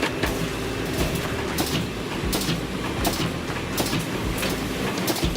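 Machinery running steadily with a regular sharp clack about every three-quarters of a second over a constant low hum.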